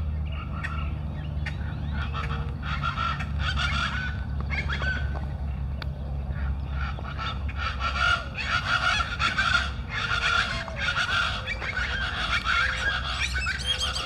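A chorus of Plain Chachalacas calling, many repeated calls overlapping, growing thicker about halfway through.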